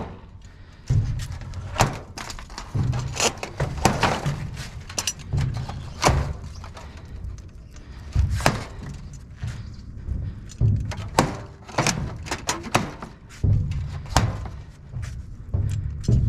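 Irregular knocks, thuds and clatter of glass-panelled garage door sections being pulled and dropped in a dumpster.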